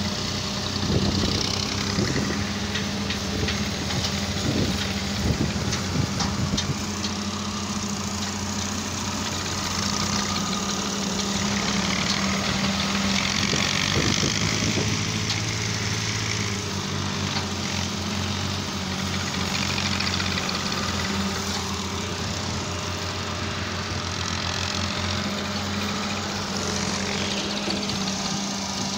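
Diesel engines of a farm tractor and an excavator running steadily, with a few knocks and clanks in the first several seconds.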